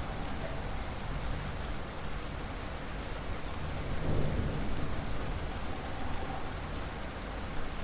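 Steady rain falling, with a low rumble swelling about four seconds in.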